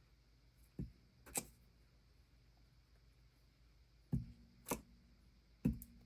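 A handheld stamp tapped onto an ink pad and pressed onto a journal page. It makes short knocks in pairs, a dull thud followed by a sharper click, three times.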